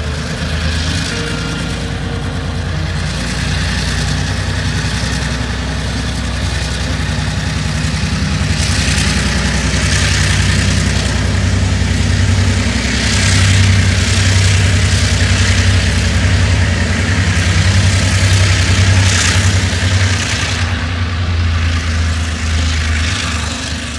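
Diesel-electric locomotive engine running with a steady low drone as it hauls a passenger train past, louder through the middle. Several spells of hiss come with it, around the middle and near the end.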